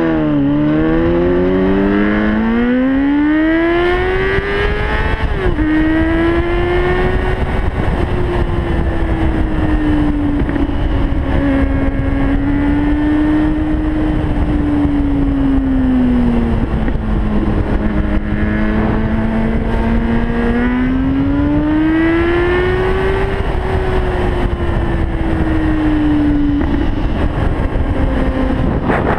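A 2004 Yamaha R6's inline-four engine under way. The revs rise for about five seconds, drop sharply at a gear change, then ease up and down while cruising. Wind rumble on the microphone runs underneath.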